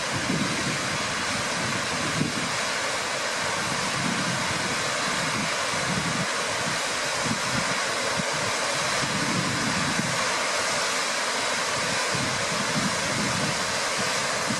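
Steady rushing of a waterfall and its cascades, with wind buffeting the microphone in irregular low gusts.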